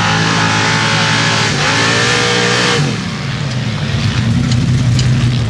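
Sand drag truck's open-header V8 engine revving hard under throttle, pitch dipping briefly about a second and a half in and climbing again, then backing off to a lower, steadier run a little after halfway.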